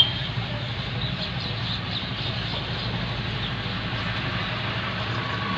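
Steady low engine rumble of background traffic, with a brief high squeak right at the start.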